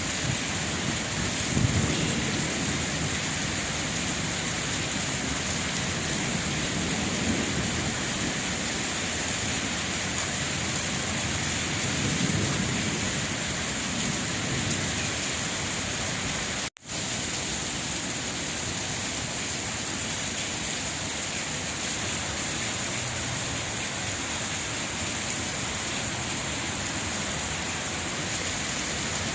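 Steady rain falling, with a low rumble swelling near the start and again a little before the middle. The sound cuts out for a split second just past the middle.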